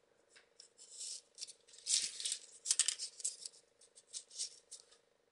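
Small folded paper modules of a 3D origami model rustling and scraping in short, irregular bursts as they are handled and pushed into place on the model.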